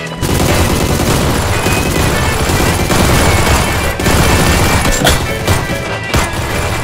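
Rapid, continuous machine-gun style gunfire, a dense volley of shots that breaks in suddenly, with background music under it.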